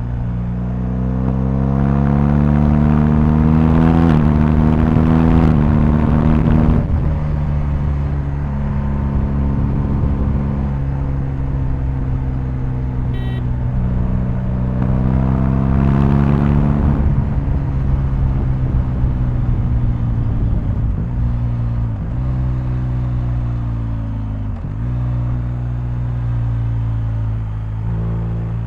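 BMW R1250GS motorcycle's boxer-twin engine under way, accelerating up through the gears in stepped rises of pitch twice, holding steady between them, with a few brief drops in revs later on.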